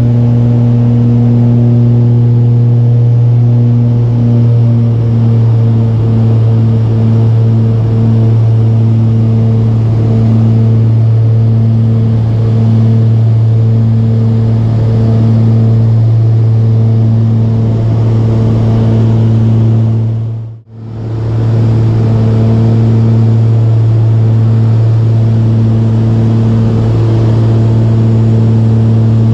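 Cabin drone of a Piper PA-31's twin piston engines and propellers in cruise: a loud, steady low hum with overtones that pulse in a slow beat. About two-thirds of the way through the sound drops out for a split second and comes straight back.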